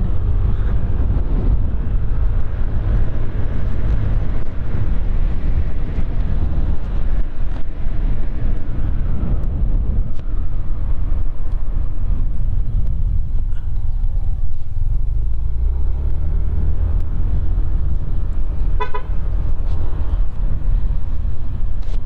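Steady wind rush on the microphone over a motor scooter's engine while riding. A short burst of horn beeps sounds near the end.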